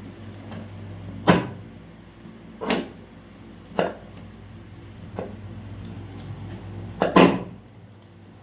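Several sharp knocks and thuds on a chiropractic treatment table as the patient is adjusted, about five in all, the last a loud double knock, over a steady hum.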